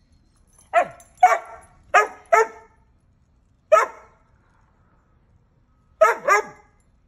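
Young Doberman barking: seven short, loud barks, mostly in quick pairs, with a gap of about two seconds before the last pair.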